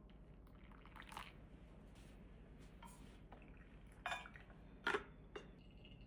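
Coffee dripping from a UFO Dripper into the vessel below: a few separate drops, the loudest about four and five seconds in, some with a short ringing plink.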